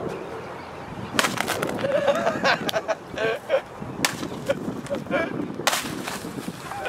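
A stick striking a hanging papier-mâché piñata: sharp whacks about a second in, about four seconds in and near the end.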